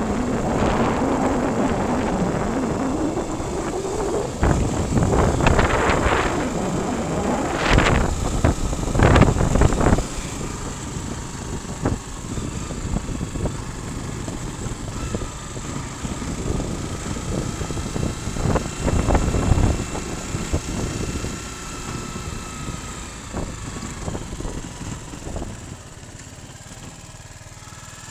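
Motorcycle running as it is ridden, its engine note falling and then rising again in the first few seconds, under heavy wind buffeting on the microphone with several loud gusts; the sound settles and gets quieter after about ten seconds.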